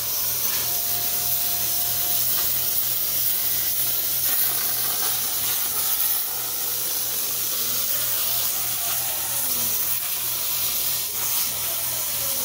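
Plasma arc of a Hypertherm 45 XP cutter on a CNC table, hissing steadily as it cuts through steel plate. A faint whine from the table's drive motors rises and falls in pitch as the torch follows the curves of the cut.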